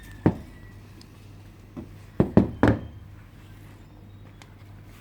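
Sharp metal clicks and snaps from the side cutters of a hand wire rope crimping tool being closed on galvanised steel wire rope: one click just after the start, then a quick cluster of three loud snaps around the middle.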